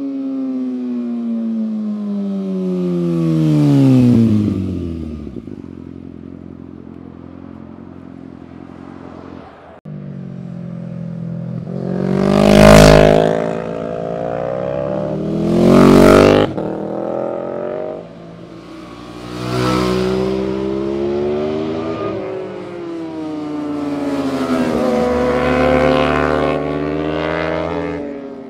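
Sport motorcycles passing one after another through a bend, about five in all. Each engine revs up and then drops in pitch as it goes by. The two loudest passes come close together about halfway through.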